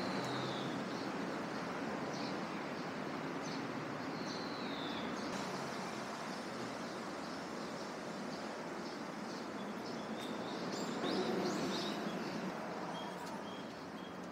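Street-side outdoor ambience: a steady hum of city traffic, with a few short bird chirps that fall in pitch. A vehicle passes, a little louder, about eleven seconds in.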